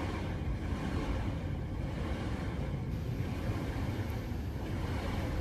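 Steady low rumble with an even hiss: a rocket engine still burning, the New Shepard booster's BE-3 engine in the last seconds before main engine cutoff.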